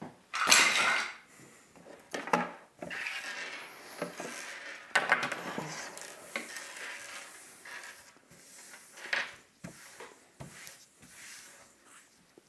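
Hands brushing crumbly debris across a tabletop and shifting small plastic and metal parts of a sewing-machine foot-pedal controller: irregular rubbing and scraping with a few light clicks, the loudest scrape about half a second in.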